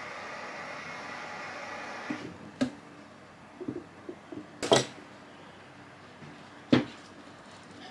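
Sharp clicks and snaps of wire cutters working on an angle grinder's cord wires. The loudest snap comes about two-thirds of the way through, another follows near the end, and smaller clicks come before them. A steady hiss runs through the first two seconds.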